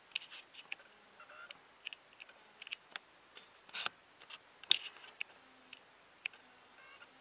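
A vape's rebuildable dripper being puffed with its airflow closed down: the coil gives faint, irregular sharp crackles and pops as it fires, with a brief faint whistle of air drawn through the tight airflow.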